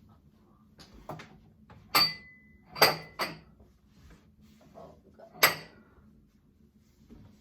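Wine glasses clinking as they are hung in a wine glass rack: four sharp clinks, the first and last with a brief bright ring.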